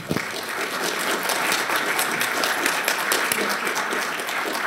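Audience applauding, many people clapping steadily.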